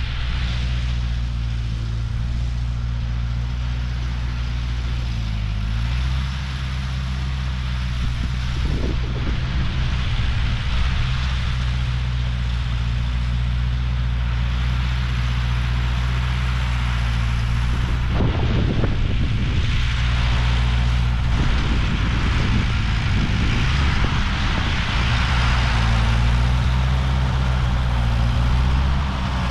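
Ford 8N tractor's four-cylinder engine running steadily under load while pulling a Ferguson cultivator through the soil. The engine speed sags briefly and recovers about five seconds in and again near the end.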